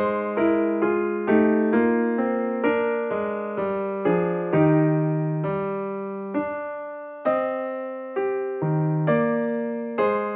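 Background piano music: a slow, gentle line of struck notes, each fading away, about two a second.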